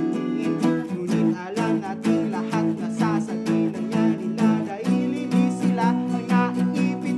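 Two acoustic guitars strummed and picked together in a folk song, with a man singing over them.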